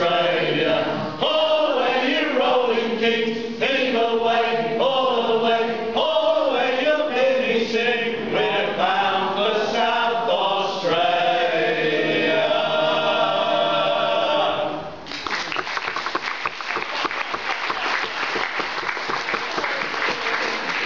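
A group of men singing a sea shanty together, finishing on a long held note, then applause breaking out about fifteen seconds in.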